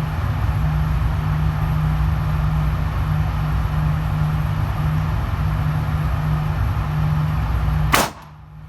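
A single pistol shot from a Smith & Wesson M&P Shield EZ near the end, over a steady low droning hum. The recording's level dips sharply just after the shot.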